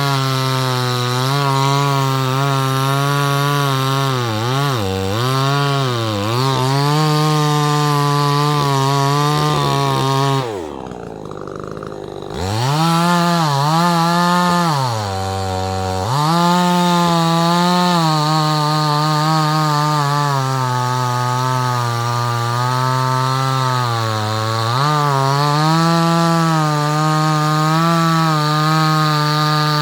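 Budget two-stroke chainsaw, running on fuel treated with Lucas Octane Booster, at high revs while sawing wood. The pitch sags several times as the saw bogs in the cut. Just over ten seconds in it drops away briefly, then revs back up.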